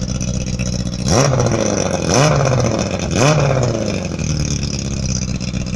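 Yamaha R6's inline-four engine idling, with the throttle blipped three times about a second apart. Each rev climbs quickly and drops straight back to idle.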